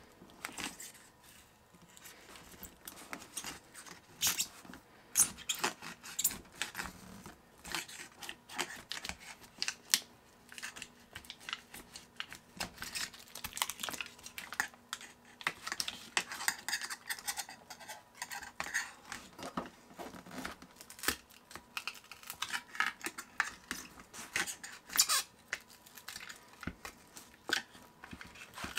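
Thin pry tool scraping and prying under a laptop battery, working it free of the adhesive tape strips that hold it down: a steady run of irregular scratches, clicks and ticks.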